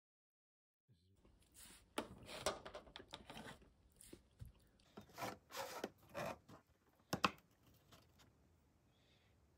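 After about a second of silence, a metal fork scrapes, taps and rustles against a clear plastic takeaway container as dessert is scooped out, with a sharp click about seven seconds in.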